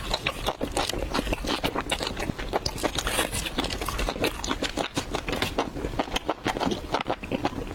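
Close-miked chewing and biting of food: a dense, irregular run of crisp, wet clicks and crunches.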